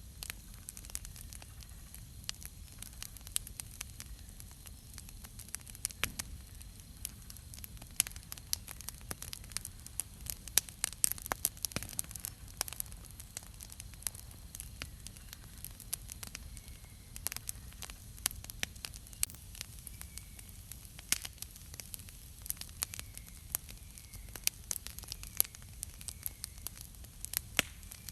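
Wood campfire crackling: irregular sharp pops and snaps over a soft steady hiss. A few faint bird chirps repeat in the second half.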